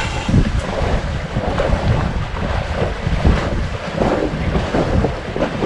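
Wind buffeting the microphone aboard a sailing yacht under way, with sea water rushing past the hull.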